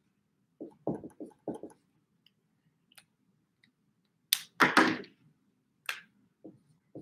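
Dry-erase marker writing on a whiteboard: a few soft short strokes about a second in, then a louder run of scratchy strokes around four to five seconds in and one more shortly after.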